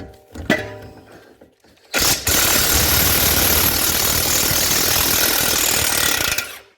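Impact wrench running in one continuous burst of about four and a half seconds, starting about two seconds in and cutting off suddenly, after a couple of sharp knocks of tool on metal.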